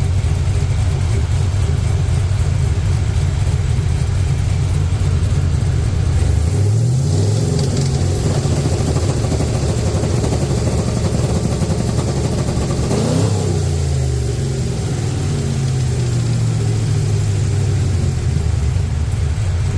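Cammed 6.0 L LS V8 idling, then revved up about six seconds in and held at the set rpm of an MSD 2-step rev limiter. It rises once more briefly around thirteen seconds, then drops back to idle.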